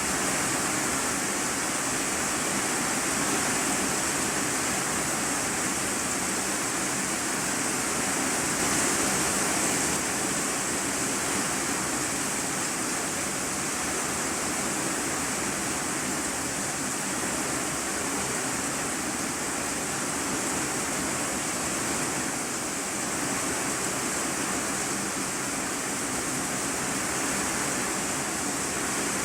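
Steady heavy rain falling on a corrugated iron-sheet roof, heard from inside the room beneath it as a dense, even hiss.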